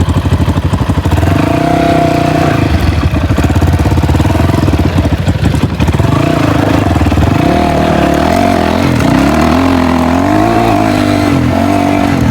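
Dirt bike engines running under way, their pitch rising and falling with the throttle.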